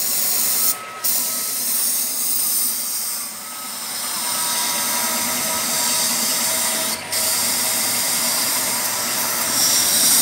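Compressed air from an air hose hissing as it is blown through a clogged catalytic converter from a Renault Kangoo 1.5 dCi, to clear it out. The air is shut off briefly about a second in and again near seven seconds.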